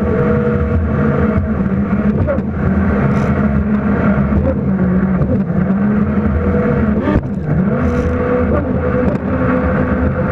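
Jet ski engine running with revs dipping and rising, over a wash of water noise, with a couple of brief sharp sounds near the end.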